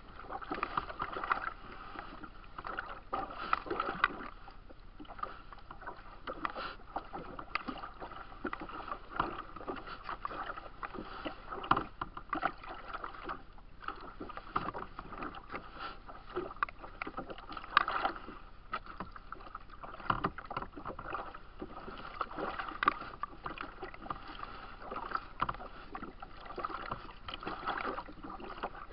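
Choppy lake waves slapping against a kayak's hull and splashing on the grassy bank: irregular knocks and splashes over a steady wash of water.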